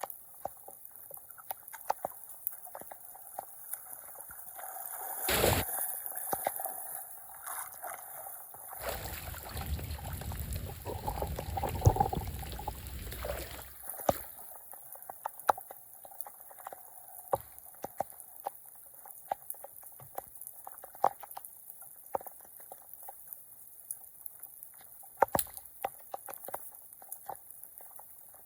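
Floodwater sloshing and gurgling at a clogged street drain, with scattered small clicks and knocks throughout. There is one sudden loud splash-like hit about five seconds in, and a louder rushing stretch from about nine to fourteen seconds.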